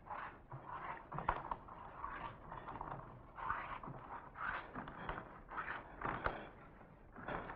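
Bare feet stepping and scuffing on a floor: irregular soft pats and scrapes, one or two a second, with a couple of sharper knocks.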